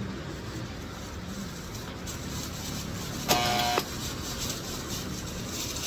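Steady street traffic noise, broken a little over three seconds in by one loud, half-second beep with a bright, buzzy pitch, like a vehicle horn.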